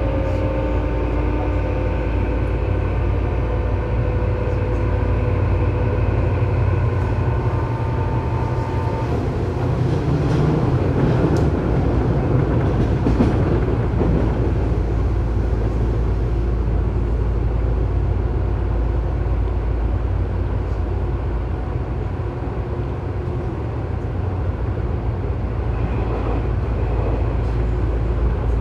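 Tobu 9000 series electric train running at speed, heard from inside the car directly above its armature chopper controller, in a car with an abnormal chopper noise. Several steady whining chopper tones sound over the wheel and rail rumble and stop about nine seconds in, leaving the rumble, which roughens for a few seconds, before a faint high tone returns near the end.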